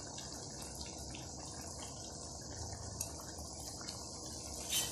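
Chicken masala gravy simmering in a wok: a steady, soft bubbling of the boiling sauce.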